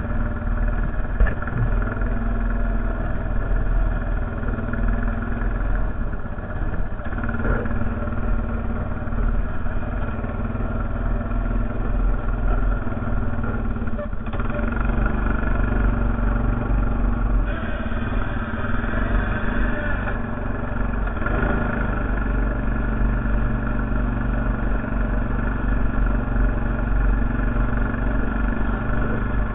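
Honda Foreman 450 ATV engine running steadily, with small shifts in its sound about midway.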